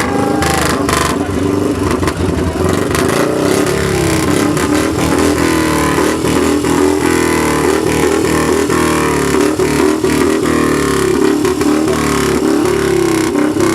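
Harley-Davidson V-twin motorcycle engine being revved over and over through its exhaust, the pitch rising and falling repeatedly.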